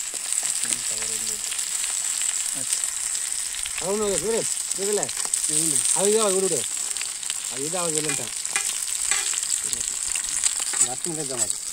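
Oil sizzling steadily as a masala-coated whole fish shallow-fries on a dosa griddle, the fish roasting well. A few short voice-like sounds come through around the middle and near the end.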